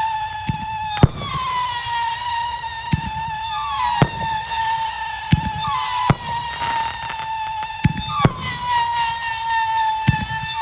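A 500-gram consumer fireworks cake firing whistling shots in turn, a sharp launch about every two seconds. Each shot's shrill whistle settles and falls slowly in pitch as it climbs, with one whistle overlapping the next, and a dull pop from the break between launches.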